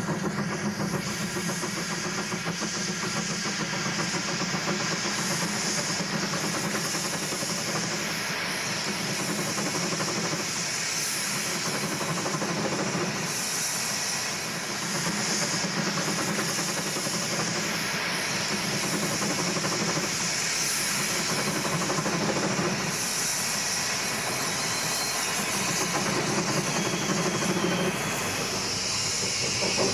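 Steam rotary snowplow working through deep snow: a steady hiss of steam together with the rush of snow thrown from the rotor, running on evenly with only slight dips in loudness.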